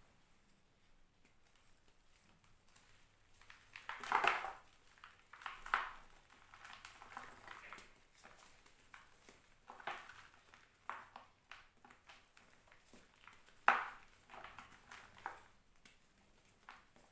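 Reformed blocks of gym chalk crunching as they are crushed, in irregular short bursts, the loudest about four seconds in and again near fourteen seconds.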